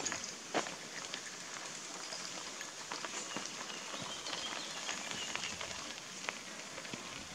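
Bicycle tyres crackling over loose gravel as a cyclist rides past close by, a dense patter of small sharp clicks.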